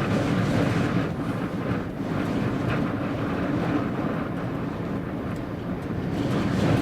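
Strong wind of about 50 mph buffeting the microphone: a dense, steady rushing rumble with a faint low hum underneath.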